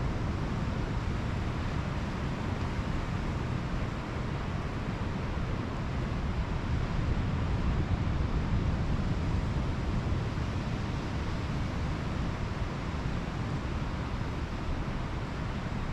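Pacific Ocean surf washing onto a beach: a steady rush, heaviest in the low range, that swells slightly about halfway through, with wind on the microphone.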